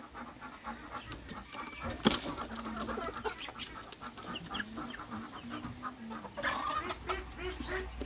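Chickens clucking as they come out through a coop's opened hatch, with a sharp knock about two seconds in and a louder, higher call near the end.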